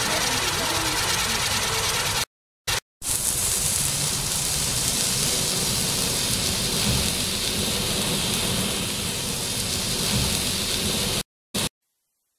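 Dense, continuous crackling of a string of firecrackers going off in rapid succession. It cuts to silence briefly about two seconds in and again near the end.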